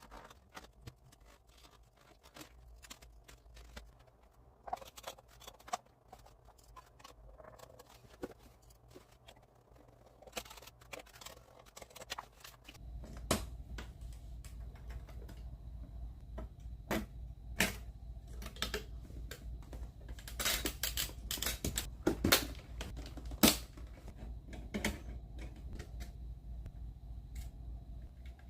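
Irregular clicks, taps and rustles of computer parts and packaging being handled and fitted together. About halfway through, a steady low hum sets in beneath the clicks.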